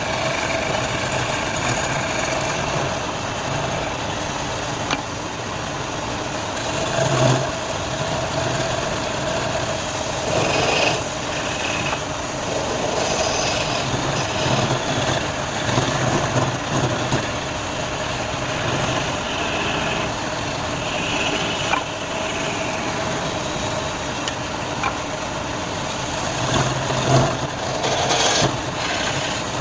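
Wood lathe running steadily, with turning tools scraping and cutting the spinning wood in irregular bursts.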